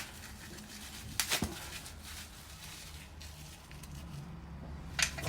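A few light clicks and knocks of clutch parts being handled, over a faint steady low hum.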